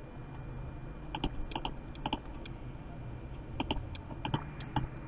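Computer mouse and keyboard clicks, in two quick runs of several sharp clicks: one about a second in and another in the second half.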